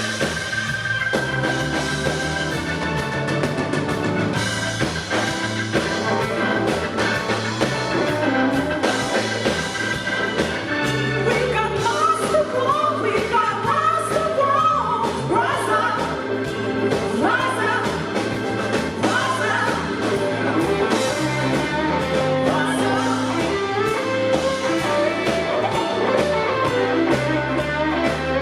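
Live blues-rock band playing an instrumental passage: drums and bass keep a steady beat under electric guitar, with a lead line bending up and down in pitch through the second half.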